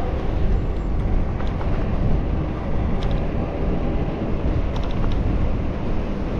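Wind buffeting a GoPro's microphone while riding a bicycle down a city street: a steady low rumbling rush, with a few faint ticks about three and five seconds in.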